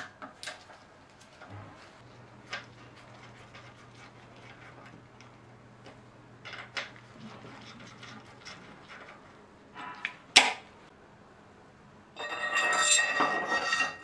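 Small metal clicks and taps of tools and bolts on an Industry Nine aluminium bicycle stem, with one sharp click about ten seconds in. Near the end comes about two seconds of loud metallic rattling and scraping as the handlebar goes into the stem clamp.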